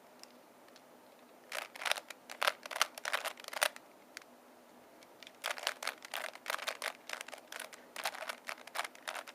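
ShengShou 3x3x3 speed cube being turned by hand, its plastic layers clicking in quick runs of turns: a short run in the first few seconds, a pause of about two seconds, then a longer, denser run.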